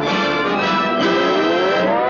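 Orchestral cartoon title music with brass; in the second half the notes slide upward together in a rising glide.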